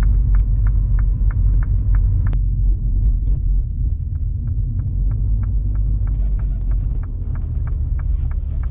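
Cabin sound of a 2020 Mini John Cooper Works GP driving slowly in traffic: a steady low rumble of its turbocharged 2.0-litre four-cylinder engine and the road, with the turn signal ticking steadily about three times a second. The ticking stops briefly after a single sharp click about two and a half seconds in, then resumes.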